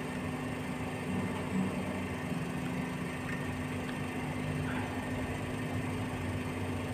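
A steady low hum with a faint hiss, unchanging throughout, with no distinct events.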